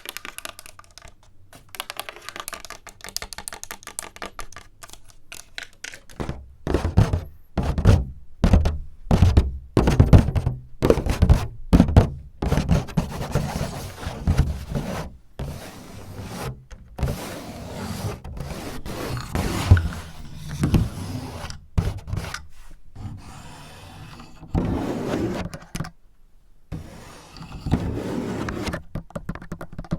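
Close-miked ASMR tapping and scratching by fingers on a surface. After a few quiet seconds comes a long run of irregular dull knocks, and then a stretch of scraping near the end.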